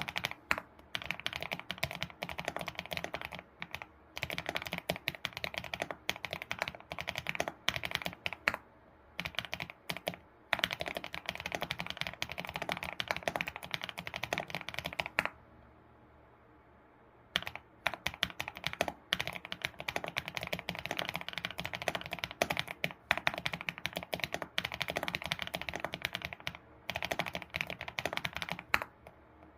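Typing on an ABKO computer keyboard: a rapid run of key clicks, with a pause of about two seconds about halfway through.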